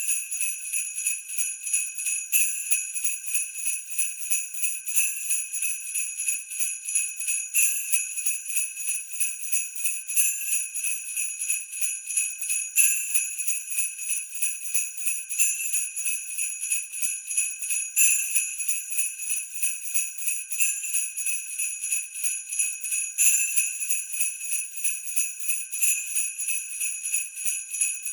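Sleigh bells jingling without a break in a quick, even shaking rhythm, with a slightly stronger shake about every two and a half seconds.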